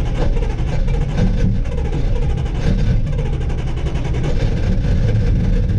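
1968 Dodge Dart's engine running steadily, just brought to life with a borrowed jump pack after it would not start.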